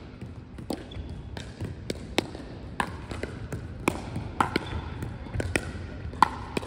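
Pickleball rally: paddles striking the hollow plastic ball and the ball bouncing on the court floor, sharp pops coming about once a second.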